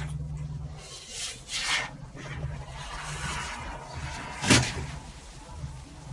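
A man blowing up a balloon by mouth, his breath puffing into it, then one sharp loud bang about four and a half seconds in. A steady low hum runs underneath.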